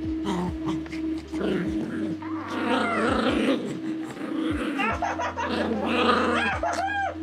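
Small dogs playing and scrambling over a person at close range, growling in play, with a series of short high-pitched whines in the last couple of seconds.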